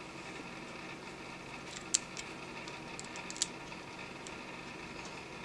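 Light clicks and taps of a hard plastic RC truck chassis part being turned over and handled, the sharpest about two seconds in and another about three and a half seconds in, over a steady faint hiss and hum.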